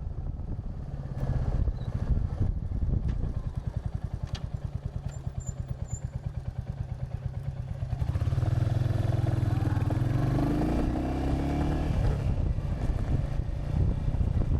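Royal Enfield Hunter 350's single-cylinder engine running at low revs with an even, rapid pulsing beat. About eight seconds in it opens up, louder, with the pitch rising as the bike accelerates.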